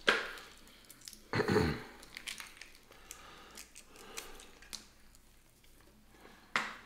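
Cooked snow crab leg shells being cracked and peeled apart by hand, giving a few short, sharp cracks and snaps, the loudest right at the start, with softer picking sounds and some chewing in between.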